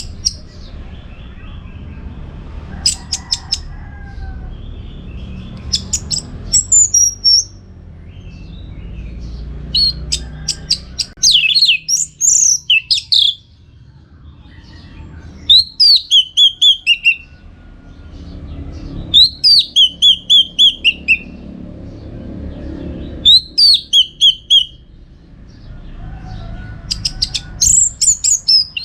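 Orange-headed thrush singing: loud, high, rapid phrases of quick notes, one phrase every few seconds, over a steady low background hum.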